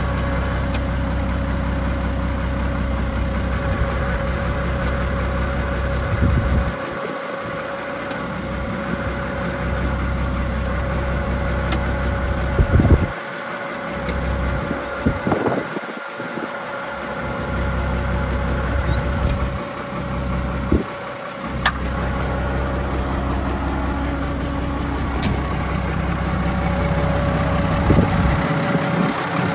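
Ford 7840 tractor's turbocharged six-cylinder diesel engine idling steadily.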